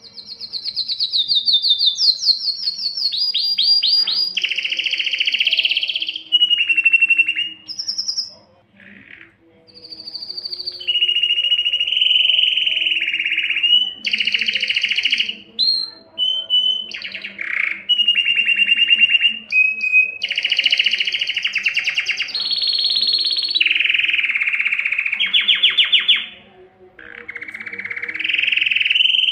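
Domestic canary song, the male's breeding song: long runs of rapid trills and rolls, each phrase held at one pitch before switching to another, with brief pauses between tours and a longer break near the end.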